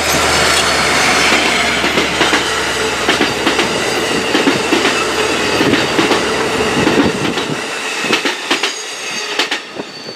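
An Amtrak California F59PHI diesel locomotive passes close by, with a high engine whine that falls slightly in pitch. Bi-level passenger cars follow, their wheels clicking steadily over the rail joints. The clicks grow fainter and stop near the end as the train moves away.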